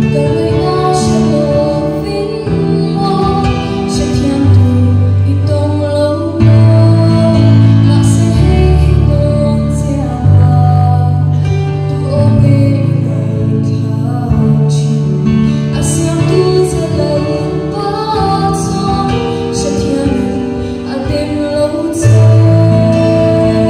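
A woman singing into a handheld microphone over instrumental accompaniment with long held chords and bass notes.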